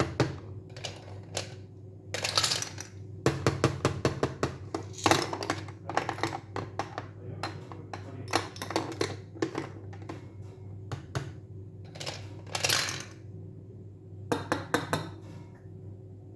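Clusters of small, hard clicks and taps from objects handled close to the microphone, with a few short scraping rustles.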